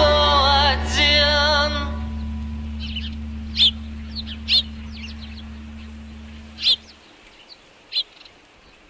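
The end of a song fading out: a wavering sung line over a low drone stops about two seconds in, and the drone holds on and cuts away around seven seconds. Scattered short bird chirps sound over the fading tail.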